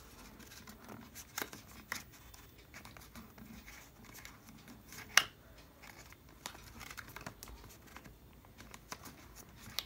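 Cardboard product box being worked open by hand: faint scattered scrapes, rustles and small clicks of paperboard, with one sharper click about five seconds in.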